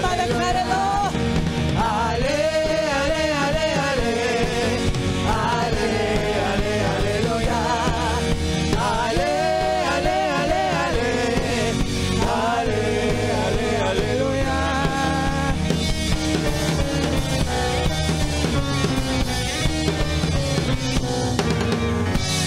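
A live worship band plays a praise song: a woman sings lead over keyboards, drum kit and electric guitar. Her sung phrases fill the first two-thirds, then the band carries on mostly without voice.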